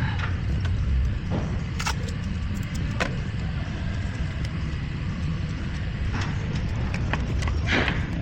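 A car engine running steadily with a low rumble, with a few sharp clicks or knocks over it, about two and three seconds in and again near the end.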